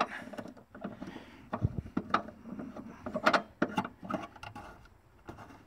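Spare-tire hold-down screw being turned by hand to clamp a donut spare tire face-down in a car's trunk well, giving scattered clicks and knocks.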